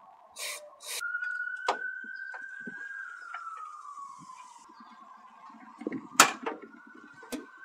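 An aerosol of mass air flow sensor cleaner sprayed through its straw in a short hiss about half a second in. A faint steady high tone runs underneath, falling slowly and rising again near the end. Small clicks follow, with one sharp knock about six seconds in as hoses and connectors in the engine bay are handled.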